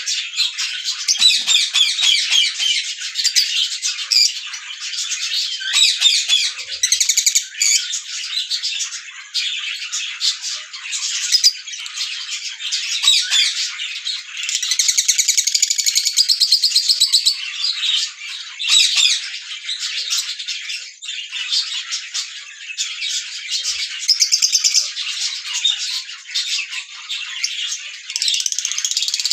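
Small pet parrots chirping and chattering continuously, many overlapping calls with fast trills in places.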